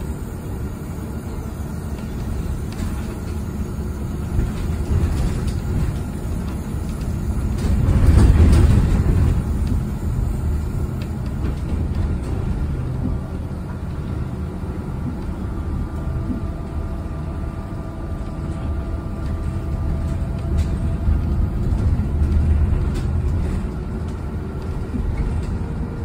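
Inside an electric city bus on the move: a steady low rumble of road and tyre noise, swelling louder about a third of the way in. A faint thin whine runs through the second half.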